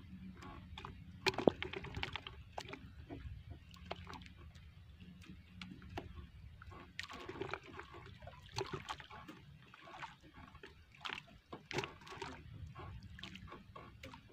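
Water sloshing and splashing around a small wooden outrigger canoe, with irregular light knocks and clicks throughout; the loudest is a sharp knock about a second and a half in.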